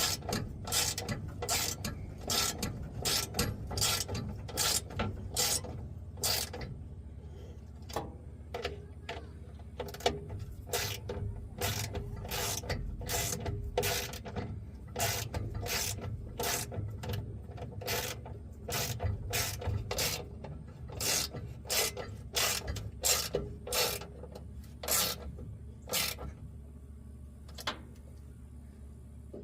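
Socket ratchet worked in quick back-and-forth strokes, a short burst of clicking about twice a second, which stops near the end.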